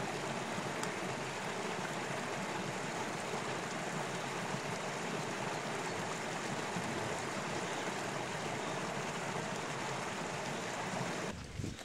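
Small meadow brook running, a steady babble of water that cuts off suddenly near the end.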